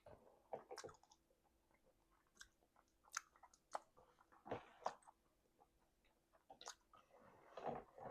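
A person chewing food messily: quiet, irregular mouth clicks and smacks.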